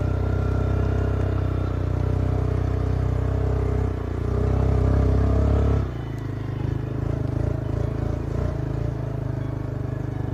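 Quad bike (ATV) engine running under throttle, swelling briefly about four to five seconds in. At about six seconds the throttle is released and the engine drops to lower, uneven running as the quad slows.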